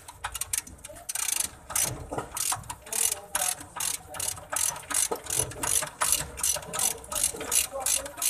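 Socket ratchet clicking in quick back-and-forth strokes, about two to three a second, as a bolt on a truck's upper suspension arm is turned.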